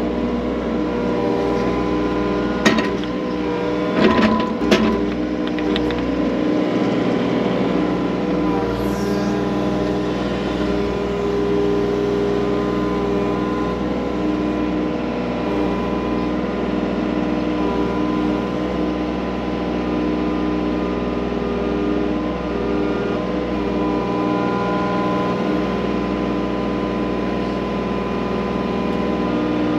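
Skid loader engine running steadily, with a few sharp knocks about three and four seconds in.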